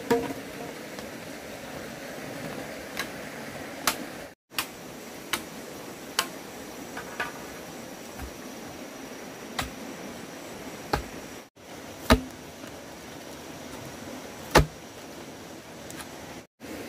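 A series of sharp, irregular knocks and taps, roughly one every second or two, the loudest two in the second half, over a steady background hiss. The sound drops out abruptly three times.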